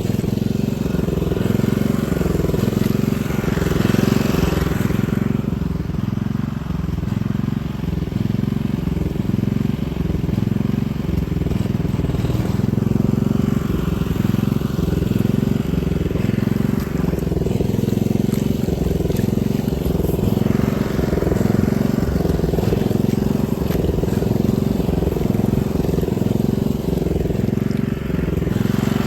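Small engine of an Amenbo-go paddy weeding machine running steadily under load, with a regular pulsing beat in its note as it works through the rice paddy.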